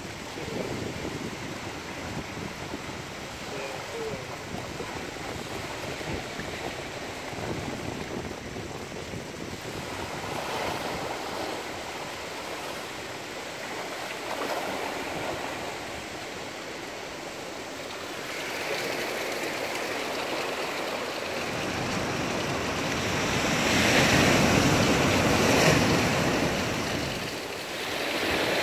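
Small ocean waves washing up a sandy beach and drawing back, in slow repeated surges. Near the end a louder, fuller rush comes in.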